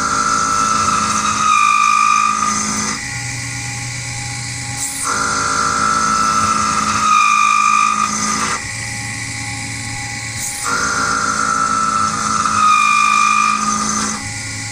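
CNC milling machine running a repeating program. About every five and a half seconds a louder phase with a high whine that drops a step in pitch alternates with a quieter low hum, three times over.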